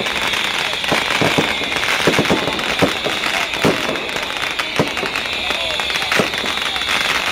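Beehive fireworks: a mass of bottle rockets launching together, a dense, continuous high shriek with many sharp bangs and cracks throughout.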